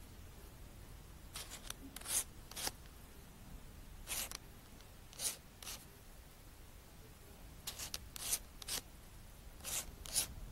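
Fingers rubbing and gripping the rubber eyecup and eyepiece barrel of a spotting scope: short scraping rubs that come in irregular groups.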